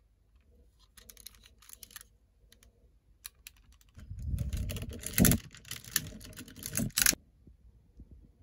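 Plastic parts of a Gao Hunter robot toy clicking and rattling as they are handled: scattered light clicks at first, then a louder stretch of handling with a few sharp knocks from about four to seven seconds in.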